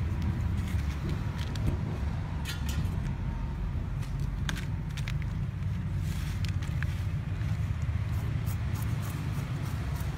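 A steady low rumble throughout, with scattered short clicks and light rustles as snakes are handled and cut with a small knife on a banana leaf.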